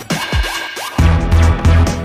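Electronic dance music: a few falling swoops in the first second, then a heavy bass beat comes in about a second in.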